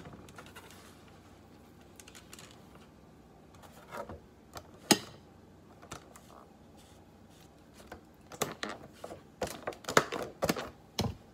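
Utensil tapping and clinking against a plate while cutting into a slice of cheesecake: scattered light clicks, one sharp tap about five seconds in, and a quick run of taps and scrapes near the end.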